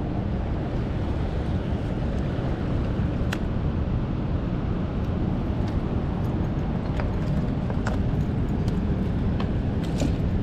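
Steady low rumbling noise with a few faint clicks scattered through it.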